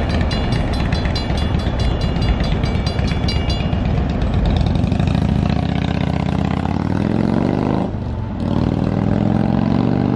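Railroad crossing bell ringing in rapid, even strokes over a low rumble, stopping about four seconds in as the gates lift. Then a car engine rises in pitch as it accelerates, dips briefly, and runs on.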